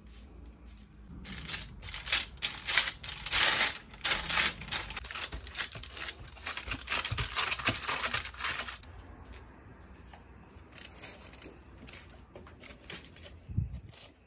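Parchment (baking) paper crinkling and rustling under hands spreading and pressing dough flat in a baking tray: a loud stretch of crackly rustling for about seven seconds, then softer rustles, and a low bump near the end.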